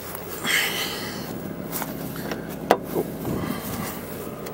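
Footsteps and handling noise beside a car. A sharp click a little past halfway, then a softer one, comes from the rear door latch being worked.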